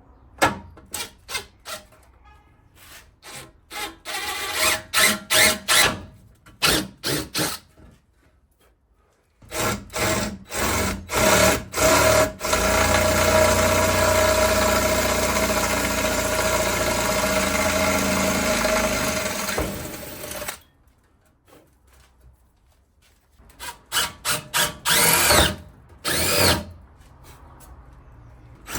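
Power drill with a 5/16-inch bit drilling mounting holes in a motorcycle fender: many short trigger blips at first, then a steady run of about eight seconds, then a few more short blips near the end.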